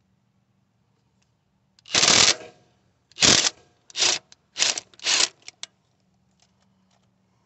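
Ratchet wrench on a long extension clicking in five quick strokes, each a few tenths of a second, then a couple of lighter clicks, as a 10 mm bolt holding the EGR valve on a Honda D16 engine is loosened.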